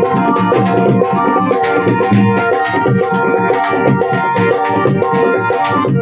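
Rajasthani folk instrumental music accompanying a puppet dance: fast, busy hand-drum strokes over held keyboard notes, steady and loud throughout.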